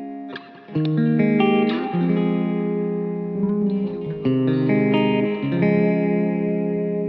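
Background music: an electric guitar playing sustained chords that change every second or so.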